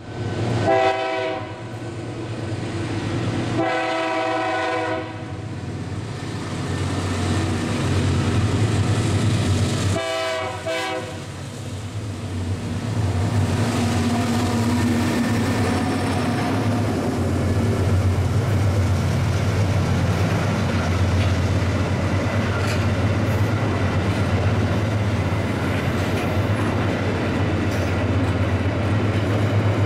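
Diesel freight locomotive sounding its horn in three short blasts over the first ten seconds or so, then passing close with a steady low engine rumble and the rolling clatter of tank cars' wheels on the rails.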